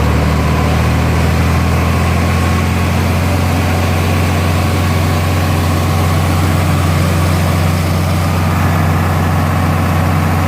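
John Deere 4020 tractor's six-cylinder engine running steadily at a constant working speed under load while it drives a grain auger, its newly installed engine being broken in.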